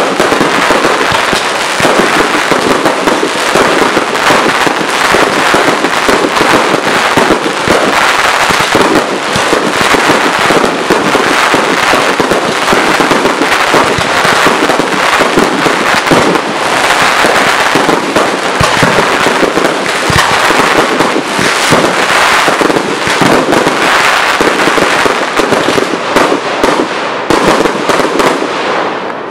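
Professional fireworks display at close range: a dense, unbroken barrage of bursts and crackle from shells and multi-shot cakes, easing off near the end.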